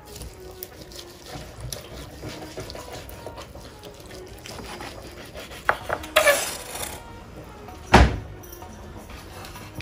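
Long carving knife sawing through the crusted bark and bones-side of a cooked standing rib roast on a bamboo cutting board, with a louder stretch of scraping about six seconds in. A single thump on the board about eight seconds in as the slice comes away.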